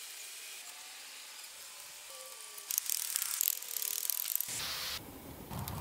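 A wooden tool scraping and rasping against a reed thatch roof in quick, rough, irregular strokes. The strokes start a little before halfway, after a quiet stretch of faint hiss.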